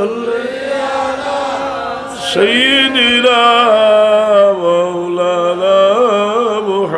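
A man chanting the durood (salawat on the Prophet) in long, drawn-out melodic phrases with a wavering pitch, breaking off briefly about two seconds in.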